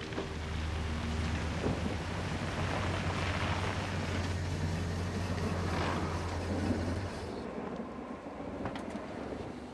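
Chevrolet Suburban driving on a wet road: a steady low engine hum under tyre hiss. The hum cuts off about seven seconds in.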